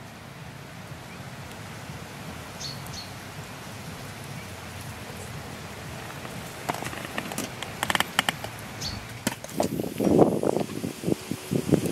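Outdoor ambience: a steady low hiss with a few faint high chirps. After about two-thirds of the way, a run of sharp clicks. Near the end, loud irregular rushing bursts.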